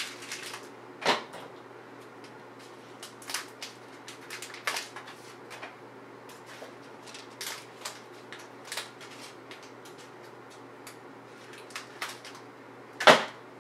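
Snack packaging being handled and torn open: irregular crinkles and clicks, with sharper cracks about a second in and near the end.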